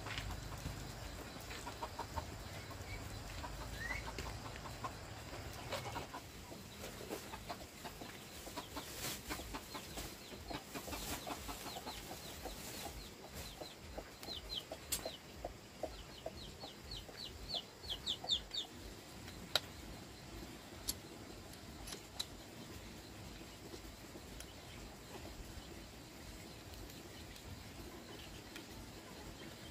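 Chickens clucking in a string of short repeated notes, with a run of quick high chirps about halfway through and scattered sharp knocks and clicks.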